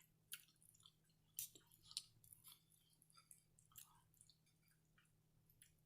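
Faint, close-miked chewing of pan-seared pierogi with cabbage and bacon: soft, wet mouth clicks at irregular intervals, with a faint steady hum underneath.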